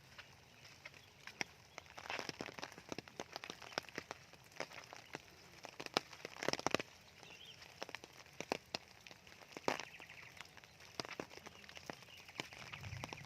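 Rain falling, with single drops striking a hard surface as sharp, irregular ticks over a faint hiss. The drops come in thicker clusters about two seconds in, around the middle, and again near ten seconds.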